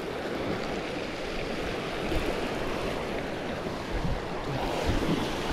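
Small waves breaking and washing over a shingle beach, a steady rushing wash, with low wind buffets on the microphone about four seconds in.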